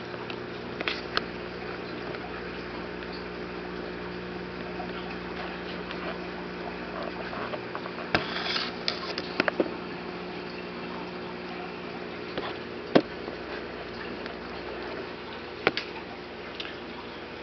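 Steady hum of aquarium pump equipment over the wash of circulating water, with several sharp clicks; the loudest click comes about thirteen seconds in.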